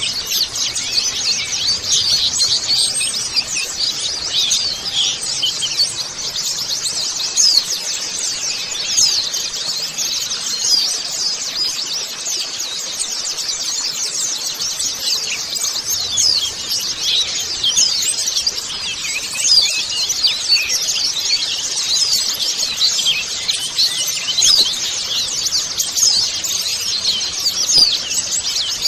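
A flock of white-eyes (pleci) twittering together in a constant, dense chatter of many overlapping high, quick chirps. This is the flock call used as a lure to get caged white-eyes to start singing.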